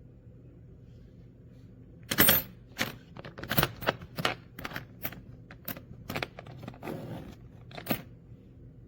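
About a dozen sharp clicks and knocks of hard objects being handled, irregularly spaced and loudest at the first one, over a steady low electrical hum.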